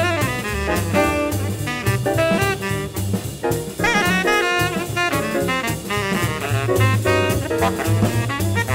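Tenor saxophone soloing in quick running eighth-note lines over a jazz rhythm section, with a bass walking a note on every beat and drums keeping time on cymbals.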